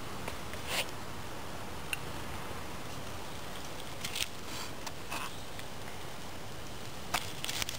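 Steady low hiss with a few short, scattered clicks and crackles from a small flame burning on freshly lit feather-stick shavings and a knife being set down in dry leaf litter.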